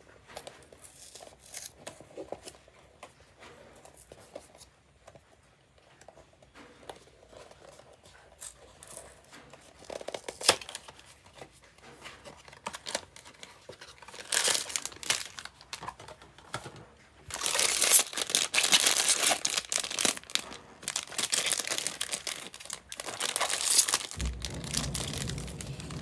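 A foil blind-box bag being torn open and crinkled by hand, loudest in the second half, after quieter rustling and scraping as a small cardboard box's flaps are opened.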